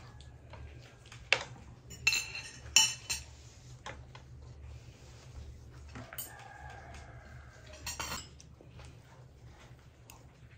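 Kitchen utensils and dishes clinking: a few sharp, ringing clinks in the first three seconds, then a longer scraping, ringing sound about six to eight seconds in.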